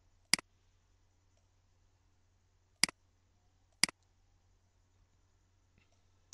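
Three sharp computer mouse clicks: one just after the start, then two a second apart about three seconds in, over a faint low hum.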